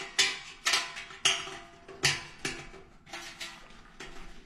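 Stainless steel leg clips of a Solo Stove heat deflector clinking and clanking against the deflector's steel rim as they are worked into place by hand: an irregular run of about nine sharp metallic knocks, each ringing briefly, the loudest in the first two seconds.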